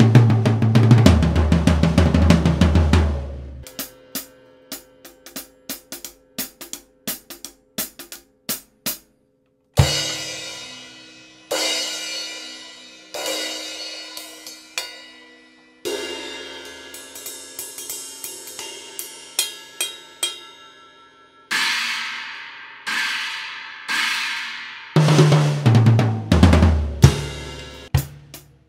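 Pearl Vision Birch five-piece drum kit with Zildjian ZBT cymbals played as a sound test. It opens with a fill rolling down the toms from high to the floor tom, then a stretch of light, quick taps, then crash cymbals struck with the kick drum and left to ring. Near the end comes another fill down the toms.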